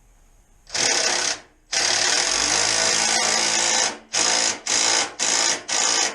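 Impact wrench tightening a bolt on a slip-on exhaust. It runs in a short burst, then a longer burst of about two seconds, then four short bursts as the bolt snugs tight.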